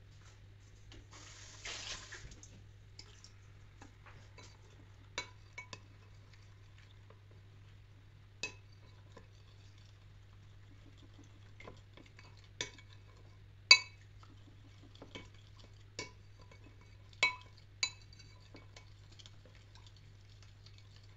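Spoon or fork clinking against a bowl as flour batter for banana fritters is stirred, in scattered single clinks, the loudest about halfway through. A short pour of water about a second in.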